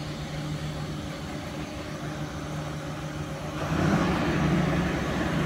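Engine of a Cometto self-propelled girder transporter running with a steady low hum while it carries a bridge-girder launcher. The engine becomes louder and growling about three and a half seconds in.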